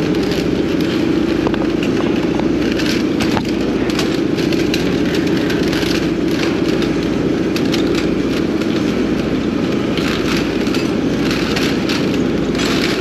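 An engine runs steadily with a constant low drone. Scattered light clicks and scrapes sound over it.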